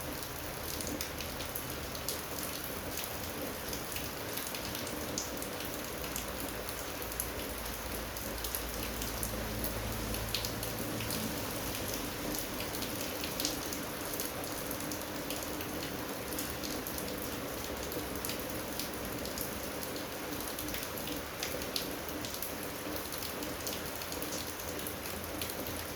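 Steady hiss of noise, rain-like, with scattered small clicks and taps throughout and a low rumble for a few seconds about a quarter of the way in.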